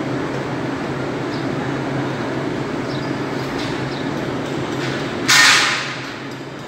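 A steady low mechanical drone with a faint hum, like a motor or engine running, with a few faint ticks. About five seconds in comes a sudden loud hiss that dies away within a second.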